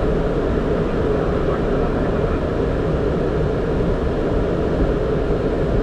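Steady cockpit noise of a Boeing 767 taxiing with its engines at idle: an even rumble and hiss with no distinct events.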